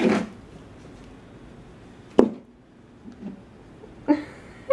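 A single sharp click or tap about two seconds in, over low room noise, with a brief softer sound near the end.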